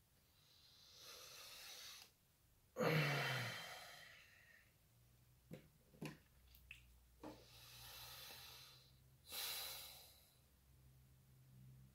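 A man breathing slowly and deeply: two long breaths, each a softer draw followed by a louder release, the first release the loudest. A few small mouth clicks come in between, about halfway through.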